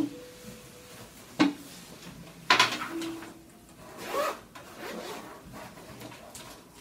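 Two thumps, the second louder, as a cloth backpack is put down on a table, then the backpack being unzipped and opened, its fabric rustling.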